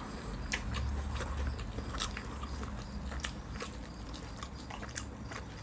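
Close-miked open-mouthed chewing: wet smacking and irregular crunchy clicks as crispy pan-fried fish is bitten and chewed.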